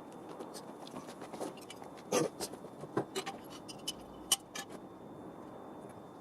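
Scattered clicks and knocks, the loudest about two seconds in, over a faint steady high whine.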